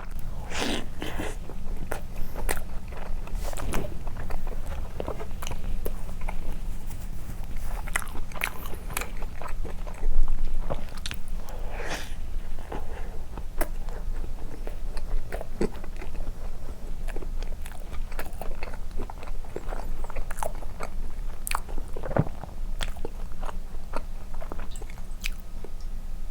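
Close-miked biting and chewing of soft condensed-milk cream bread dipped in milk: scattered wet mouth clicks and smacks, with a steady low hum underneath.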